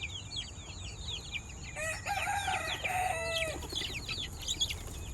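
A flock of chicks peeping in many short, falling chirps. A rooster crows about two seconds in.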